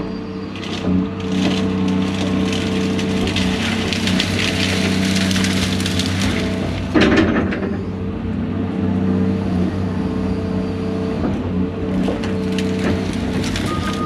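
A heavy diesel machine runs steadily while brush and dead wood crackle and snap as they are crushed, with a loud crack about seven seconds in.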